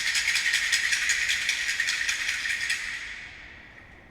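Fast, dense metallic rattling, strongest in the upper range. It fades out about three seconds in and rings away in a short echo.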